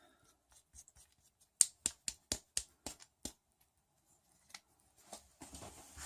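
3D-printer kit parts clicking as they are fitted together by hand: a quick run of about seven sharp clicks over a second and a half, then a few fainter ones near the end.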